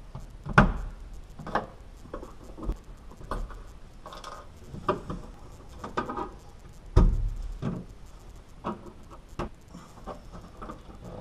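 Scattered clicks, scrapes and knocks of a hand tool and body plugs on the bare steel floor pan of a 1966 Dodge Charger as the plugs are pried out of their holes. Two louder thumps, one about half a second in and one about seven seconds in.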